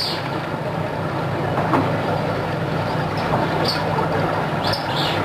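Steady rushing, rumbling noise with a few brief hissing swells.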